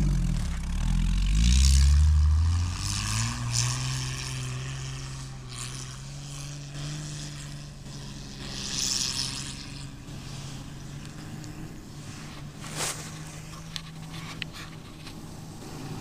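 Jeep Cherokee XJ engine revving hard as the lifted Jeep ploughs through deep snow, loud for the first couple of seconds, then running steadily and fading as it moves away. Bursts of rushing hiss come and go over the engine.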